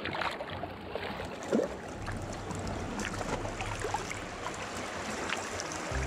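Shallow sea water lapping and trickling against shoreline rocks, with small splashes and gurgles throughout and one louder splash about a second and a half in.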